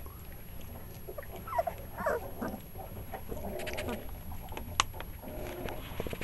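Three-week-old pit bull puppies play-fighting, giving a few short squeaky calls about one and a half and two seconds in, with fainter little vocal sounds and scuffling through the rest.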